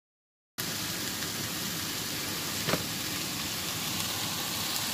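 Shishito peppers sizzling as they stir-fry in oil in a pan, a steady hiss that starts abruptly about half a second in, with one sharp knock about halfway through.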